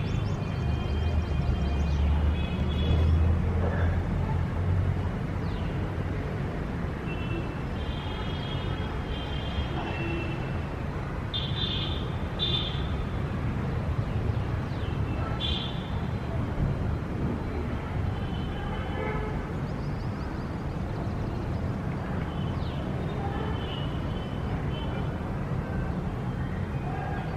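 Outdoor city ambience: a steady low traffic rumble, heavier for the first few seconds, with birds chirping in short quick series throughout.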